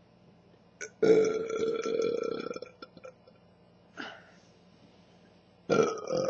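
A woman's deep burps after drinking Pepsi. A long burp of about a second and a half starts about a second in, a brief one follows at about four seconds, and another loud burp begins near the end.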